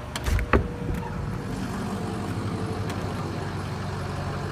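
Hitachi EX80 excavator's diesel engine idling steadily, with a few sharp knocks in the first half second.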